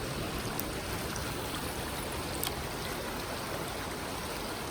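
River water flowing and rippling steadily, with two faint ticks, one about half a second in and one about two and a half seconds in.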